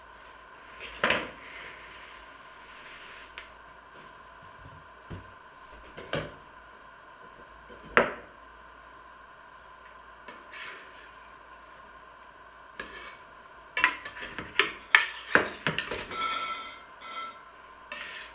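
Metal cutlery clinking and scraping against a metal baking tray as a baked egg tart is cut and a piece lifted out. A few separate clinks come in the first half, then a quick run of clinks and scraping near the end.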